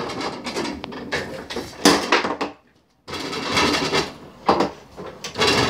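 Foosball table in play: a fast run of wooden and plastic knocks and clatter from the rods, figures and ball, stopping briefly a little after halfway.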